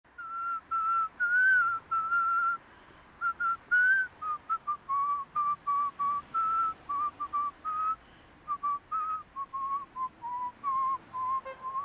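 A person whistling a tune: a melody of short and held notes that wavers and drifts gradually lower in pitch.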